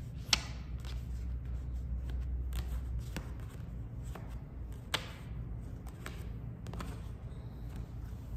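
A deck of oracle cards being shuffled by hand: a run of soft clicks and rustles, with two sharp card snaps, one about a third of a second in and one near five seconds in.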